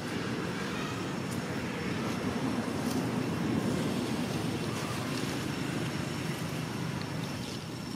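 Steady low rushing of outdoor background noise that swells slightly in the middle, with a few faint clicks.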